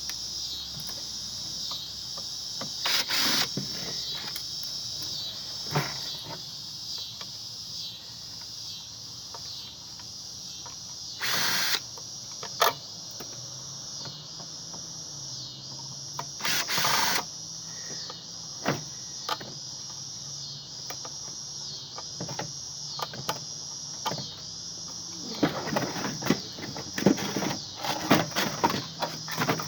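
Steady high insect chorus with a regular pulse, under scattered clicks, clanks and a few rasping noises about a second long from hand tools working on an ice maker being dismantled; the clatter gets busier near the end.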